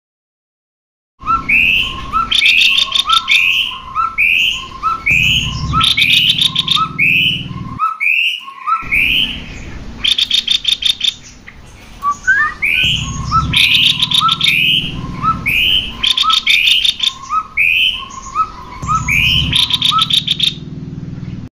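Cucak kopi birds calling in a repeated series of paired notes, a low note followed by a higher upslurred one, about two a second, mixed with harsh rattling trills. The calling starts about a second in and breaks off briefly near the middle.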